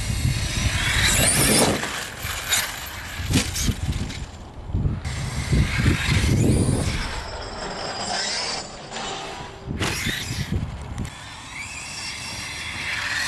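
Large electric RC monster truck driving: motor whine rising and falling, with tyre and ground noise and several sharp knocks.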